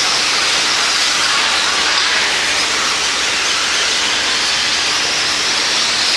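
Radio-controlled stock trucks racing on an indoor dirt track: a steady, high hiss of their motors and tyres, with no single loud event standing out.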